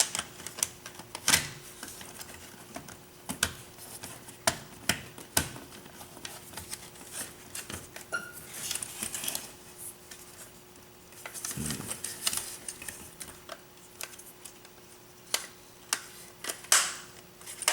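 Irregular clicks, taps and knocks of hard plastic parts and wiring being handled and pressed into place inside a radio-control bulldozer body, with a few short scraping rustles and a faint steady hum underneath.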